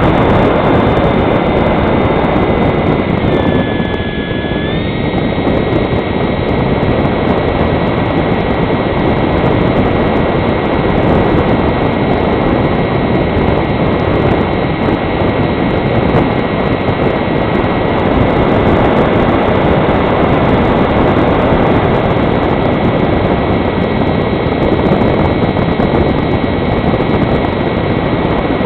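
Electric motor and propeller of a Fox model glider running in flight, heard from a camera mounted on the model, with a steady whine over airflow rush. The whine dips in pitch about three seconds in and comes back up a second or so later.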